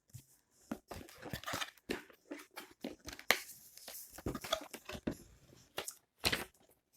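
Paper leaflets and cardboard packaging being handled and shuffled, giving irregular rustles and crinkles with short pauses between them.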